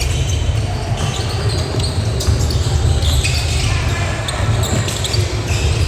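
Indoor basketball game: a basketball bouncing on a hardwood court with short clicks and squeaks of play, over a steady low rumble and faint background voices.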